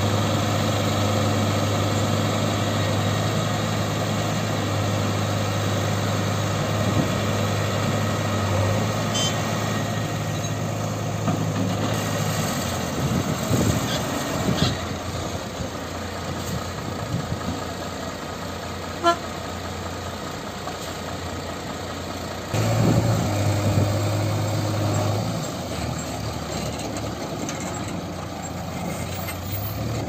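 Diesel engines of a JCB 3DX backhoe loader and tipper lorries running. The steady low drone changes character about halfway through and grows louder for a few seconds near the three-quarter mark, and a short beep sounds about two-thirds of the way in.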